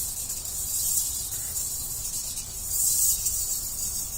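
Insects chirring in a high-pitched outdoor chorus that swells around the middle and again near the end, over a low background rumble.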